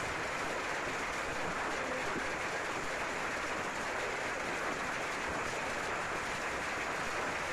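Hailstorm: hailstones and rain falling steadily on the ground and foliage, a dense, even hiss.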